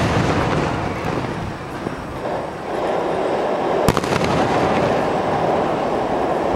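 Aerial firework shells bursting, a continuous low rumble of booms with one sharp bang about four seconds in.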